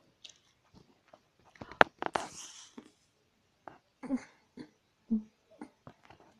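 Scattered clicks and rustling from a phone being handled close up, with one sharper click and a brief rustle about two seconds in. A few short, low vocal sounds follow in the second half.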